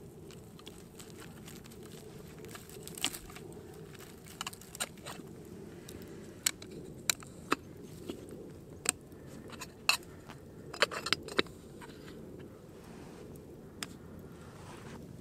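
Wood campfire crackling with scattered sharp pops under a camp kettle on the boil, over a steady low rumble.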